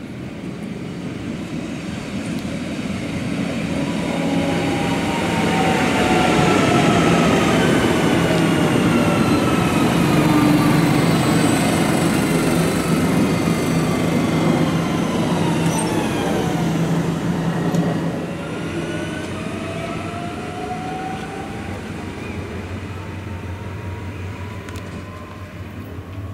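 Deutsche Bahn class 440 (Alstom Coradia Continental) electric multiple unit running into the station, its traction motor whine falling in pitch as it brakes, loudest as it passes close, over wheel and rail rumble. After a drop in loudness, a whine rises in pitch as a train accelerates away.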